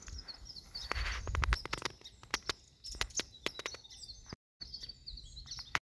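Footsteps crunching through dry leaves and brush, heavy thumps followed by a run of sharp crackles, with faint high chirping in the background. The sound cuts off abruptly near the end.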